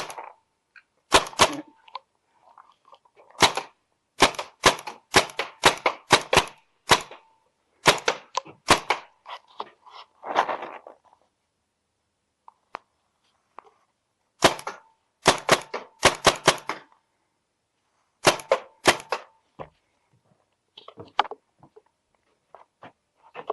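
Paintball marker firing in quick strings of sharp pops, several shots a second, with pauses of a few seconds between the strings.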